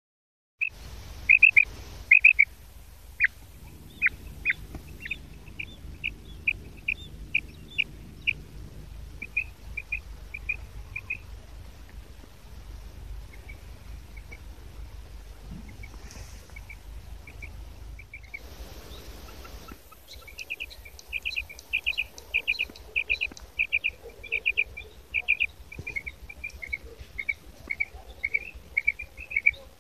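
Female quail calling from its cage: runs of short, high kirk notes, spaced at first, then quicker and louder from about two-thirds of the way in.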